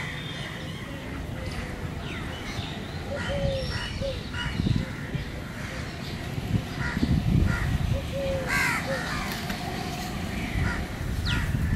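House crows cawing repeatedly, short scattered calls throughout, with a few low rumbling bursts about five and seven seconds in.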